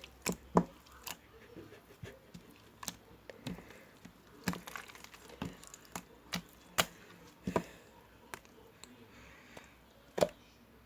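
A series of sharp, irregular clicks and taps, a dozen or so spaced unevenly, the loudest about half a second in and near the end.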